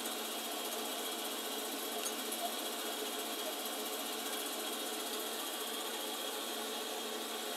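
Milling machine spindle running steadily as a boring bar feeds through a swing arm's needle-bearing bore, taking a light cut of about three thousandths to open up the out-of-round bore.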